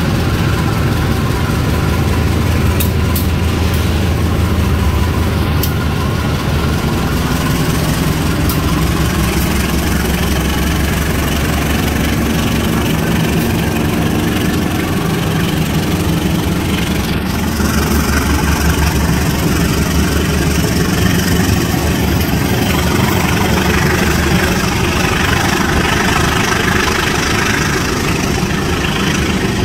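Diesel locomotive engine running steadily as it hauls a passenger train out of the station, with the coaches rolling past.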